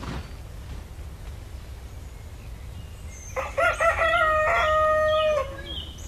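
A rooster crows once, starting about three and a half seconds in: a few short notes, then a long held note that stops about two seconds later. A low steady rumble runs underneath.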